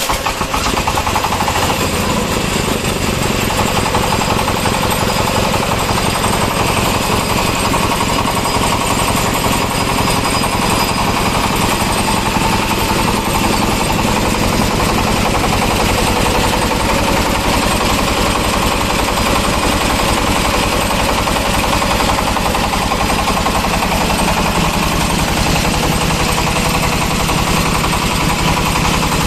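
Single-cylinder 26 HP diesel engine running steadily just after an electric-starter start, with a fast, even knocking from its firing strokes, turning a belt-driven piston air compressor.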